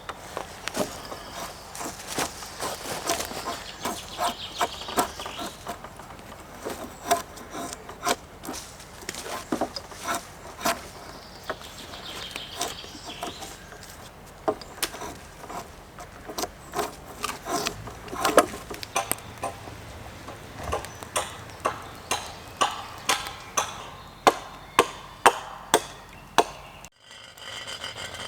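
Wood being chopped with a hand axe: a long run of sharp, irregular strikes, the loudest of them near the end.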